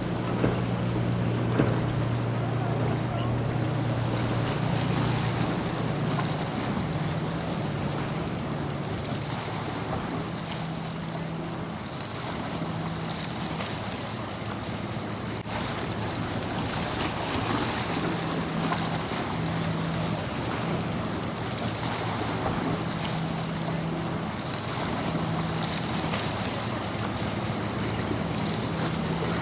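Boat engines droning with a steady low hum, over wind and surf noise.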